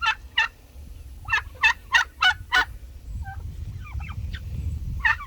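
Domestic turkeys calling: a quick run of about six loud notes, each about a third of a second apart, with quieter calls scattered before and after.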